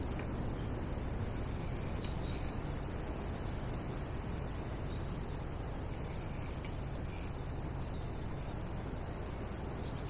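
Steady low rushing outdoor background noise, with a few faint bird chirps about two seconds in.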